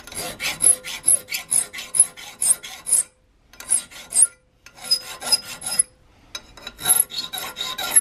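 Hand file working a small forged metal patchbox hinge clamped in a vise: rhythmic rasping strokes, about two or three a second, broken by a few short pauses.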